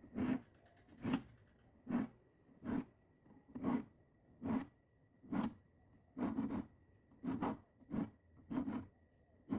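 Diamond file rasping across the teeth of a Gyokucho ryoba Japanese saw, one short stroke a little under once a second, about a dozen strokes in all.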